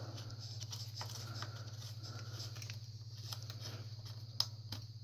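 Faint scattered clicks and ticks of small metal parts being handled as the screw holding a bicycle brake arm is fitted and turned in, with one sharper click near the end, over a steady low hum.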